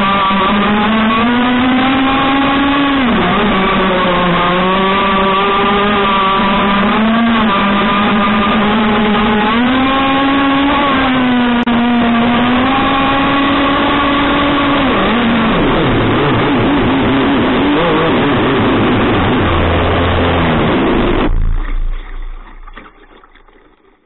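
Small petrol engine of a gas-powered RC speedboat running at high revs, its pitch rising and falling with the throttle, over the rush of spray from the hull. About fifteen seconds in, the engine note drops and turns rough, and a few seconds before the end it cuts out suddenly.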